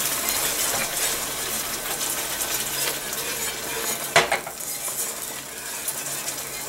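Wire whisk stirring and scraping through a roux being thinned with bone broth in an enamelled pan, over the steady hiss of the simmering gravy. One sharp clink of metal on the pan about four seconds in.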